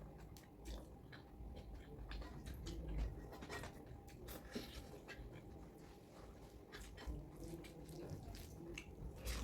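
Faint chewing and eating of chicken curry: soft wet mouth clicks and smacks, coming irregularly.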